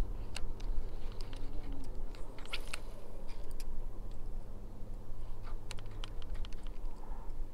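Scattered light clicks and ticks from a baitcasting reel being handled and cranked while a lure is worked, in small clusters, over a steady low hum.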